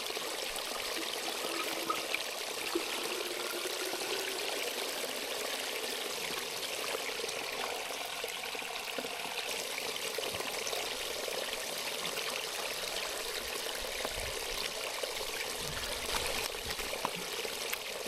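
Filtered water trickling in a steady stream from a squeezed Katadyn soft-flask filter into a plastic Nalgene bottle.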